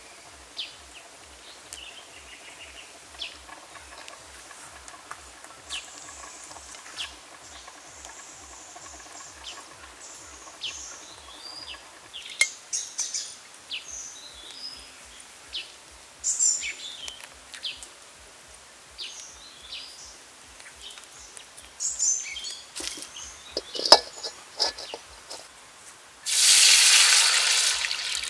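Liquid poured from a plate into a hot steel wok over a wood fire, hitting the pan with a sudden loud hiss that slowly fades, near the end. Before that, scattered light clinks and taps of a plate being handled, with birds chirping.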